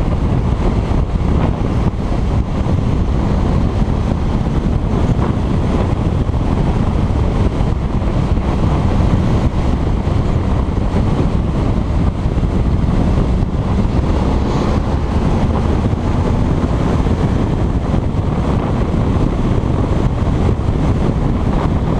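Wind buffeting the microphone of a camera on a moving motorcycle, with the motorcycle's engine running underneath; the loud rumble stays steady throughout.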